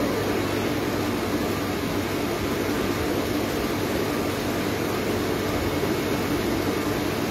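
Small electric motor running steadily with a low hum and whir, turning the spit of a whole pig roasting in a street-food cart.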